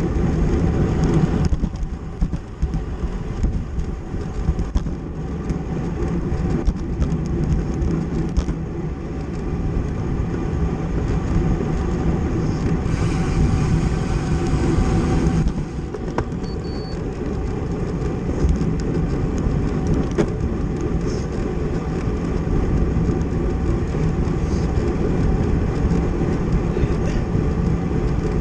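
Steady wind rush and road noise on the microphone of a camera riding in a bicycle criterium at race speed. A brighter hiss swells for a few seconds about halfway through.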